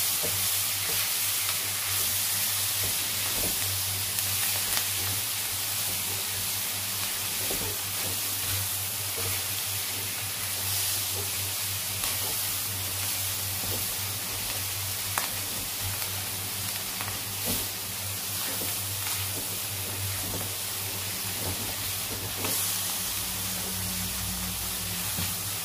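Corned beef and chopped vegetables sizzling in a nonstick wok as a wooden spatula stirs and scrapes through them, with scattered light knocks of the spatula on the pan. A steady low hum runs underneath.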